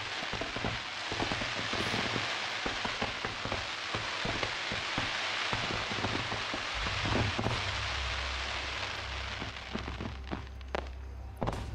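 Fireworks going off: a dense crackling hiss of many small pops, like heavy rain, from crackling and glitter effects, with a couple of sharp bangs near the end.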